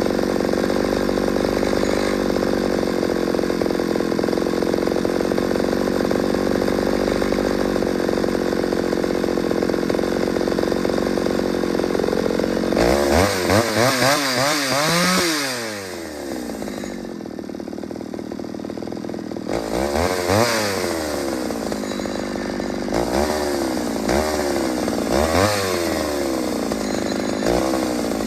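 Ported Pioneer two-stroke chainsaw running at a steady high speed for about twelve seconds, then revved up and down, falling to a low idle. It is then blipped to high revs about four times.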